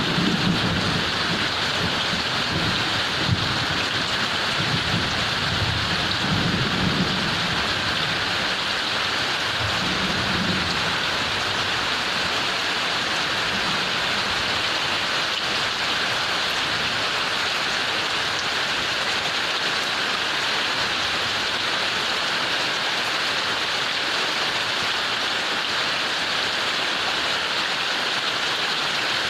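Heavy rain pouring steadily, with low rolls of thunder rumbling under it during roughly the first ten seconds.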